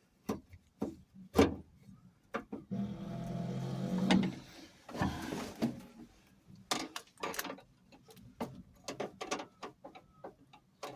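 Spanners and metal pipe fittings clicking and clinking in a scatter of short knocks during hand work on compression fittings, with a steady hum lasting about a second and a half, about three seconds in.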